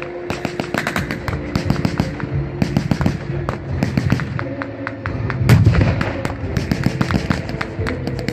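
Rapid, irregular blank small-arms fire, sharp shots cracking several times a second, with a louder, deeper bang about five and a half seconds in.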